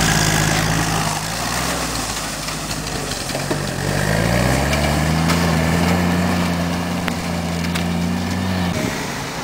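WWII jeep's four-cylinder Go Devil engine running. About four seconds in it revs up to a higher, steady pitch, which holds until the engine sound drops away shortly before the end.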